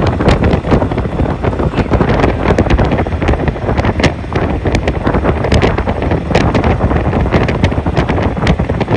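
Wind buffeting the phone's microphone with crackling gusts while riding in a moving auto-rickshaw, with vehicle and road noise underneath.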